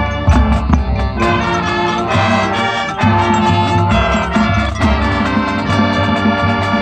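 High school marching band playing its field show: held chords from the winds and brass over a heavy low drum and bass line, punctuated by sharp percussion hits.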